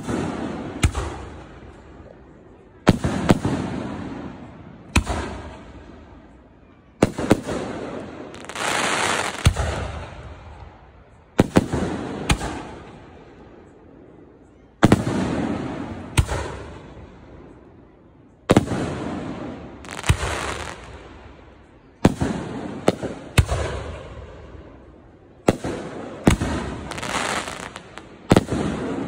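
Aerial fireworks display: sharp shell bursts every one to two seconds, each bang echoing away over a second or two. Some are followed by a longer crackling shower.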